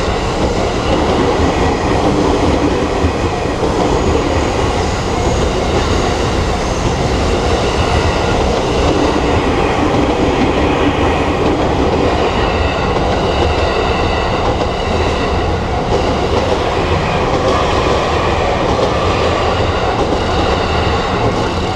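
A train running past close by: a steady, loud rumble of wheels on the rails.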